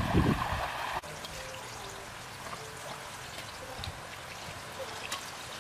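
Shallow stream running over stones, cut off abruptly about a second in. A quieter steady hiss with faint small crackles follows: duck meat frying in a wok over a wood fire.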